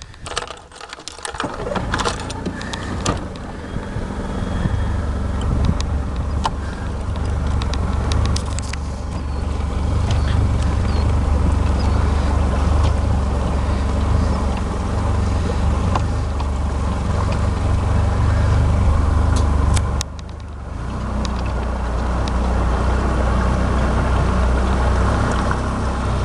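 A boat motor running steadily with a low drone, building up over the first few seconds; it drops away abruptly for a moment about twenty seconds in and then comes back. Scattered clicks and a hiss of water and wind sit over it.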